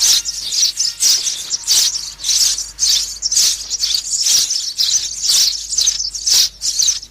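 Sparrows chirping: busy, overlapping strings of high chirps repeated several times a second, without a break.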